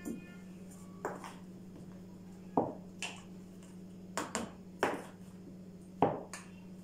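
A plastic measuring scoop and plastic mixing bowls knocking together while flour is scooped from one bowl and tipped into another: a series of short, sharp clacks at irregular intervals, some in quick pairs, over a low steady hum.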